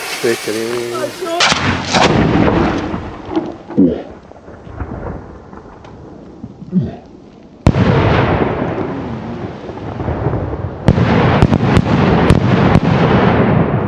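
3-inch (75 mm) aerial firework shells launched from mortar tubes and bursting overhead. There is a loud bang about a second and a half in, a sudden loud blast at about eight seconds that rolls on as a rumbling echo, and a cluster of sharp cracks from about eleven seconds on.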